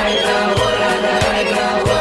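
Background music with a steady drum beat, about one and a half beats a second, over held chords.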